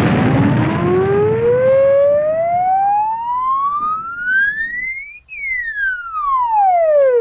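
A cartoonish creature's off-key siren-like wail, a rehearsal attempt at a musical note. It starts with a noisy blast, then one tone slides steadily upward for about five seconds and falls back down over the last few seconds.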